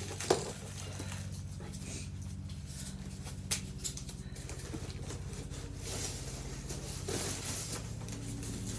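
Rustling and light clattering of packing material: foam packing peanuts and a cardboard box being handled and rummaged through. There are a couple of sharp clicks, one near the start and one about three and a half seconds in, and a denser stretch of rustling near the end, all over a steady low hum.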